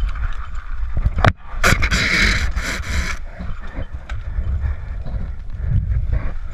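Wind buffeting and handling rumble on an action camera's microphone as the wearer moves. About a second in comes one sharp crack, followed by about a second and a half of harsh, rattling hiss.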